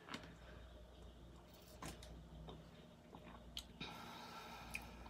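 Near silence broken by a few faint clicks as a drink is sipped from a plastic Contigo water bottle and the bottle is lowered.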